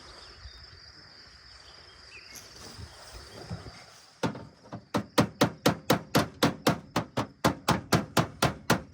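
A hammer striking repeatedly. A single knock comes about four seconds in, then a steady run of blows at about four a second.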